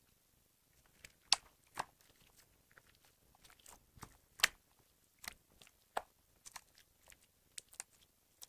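Homemade borax slime being poked and squeezed by fingers, giving a dozen or so irregular sharp, wet pops and clicks as air trapped in it is pressed out; the loudest come about a second and a half in and just past four seconds.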